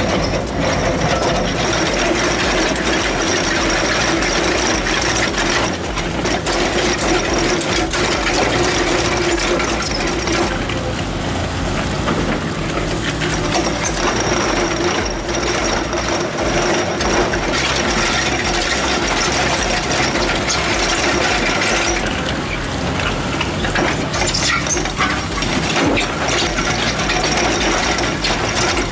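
Heavy tracked earthmoving machine at work: the engine runs steadily under continuous metallic clanking and grinding from the running gear.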